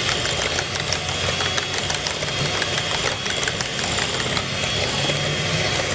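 Electric hand mixer running steadily with a high whine, its beaters whipping biscuit batter until it turns white and fluffy.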